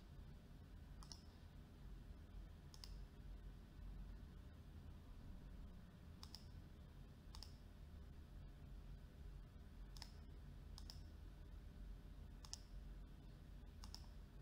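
Computer mouse clicks, about eight sharp single clicks spaced irregularly, over a faint steady low hum.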